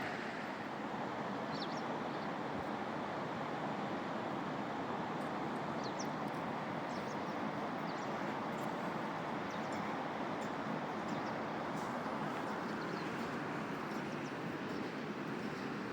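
Steady rush of flowing river water, with faint short bird chirps here and there above it.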